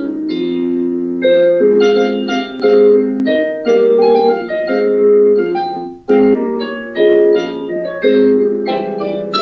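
Digital piano playing a slow piano arrangement of an Azerbaijani folk song: a melody over held chords, with a brief break between phrases about six seconds in.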